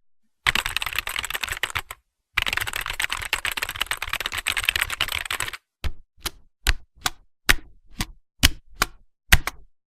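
Typing sound effect: a fast run of keystrokes, a brief pause, a longer fast run, then about ten single keystrokes spaced roughly half a second apart.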